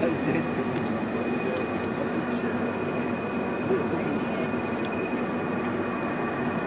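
Stationary electric multiple-unit train's onboard equipment giving a steady hum with a thin high whine.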